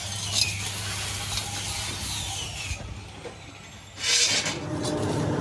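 Power-tool noise in a metal workshop: a steady rushing hiss with a faint falling whine that drops away about three seconds in, then a loud short burst about four seconds in.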